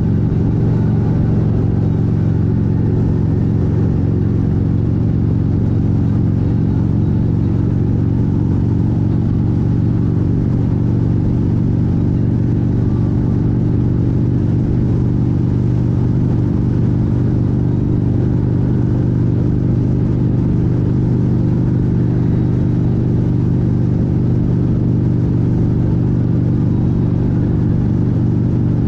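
Motorcycle engine running at a steady cruising speed, holding an even pitch throughout.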